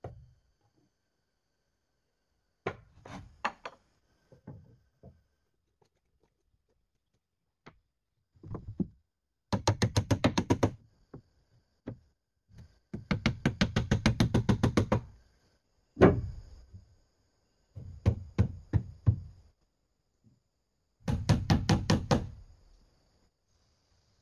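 Hammer blows on wooden planks, coming in quick runs of strikes with pauses between, as boards are nailed onto a timber frame.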